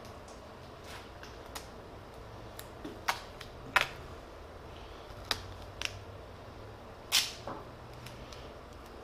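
Gorilla Tape being pulled off the roll and torn by hand: several short rips and crackles, the longest and loudest about seven seconds in.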